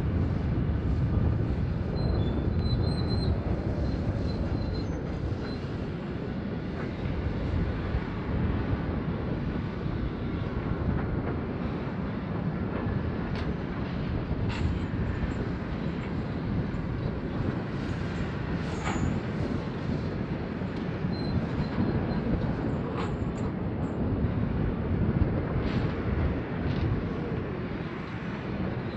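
Hitachi 870 excavator at work loading haul trucks: its diesel engine and hydraulics run with a steady low rumble. Sharp metallic clanks and knocks break in every few seconds, mostly in the second half, with a few faint high squeals.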